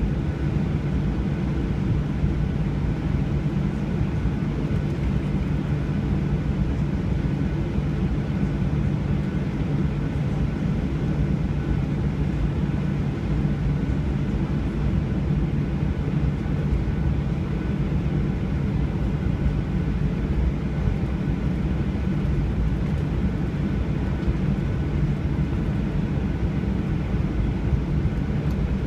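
Steady cabin noise of a jet airliner: a constant low rumble of engines and airflow, with a faint steady whine above it, unchanging throughout.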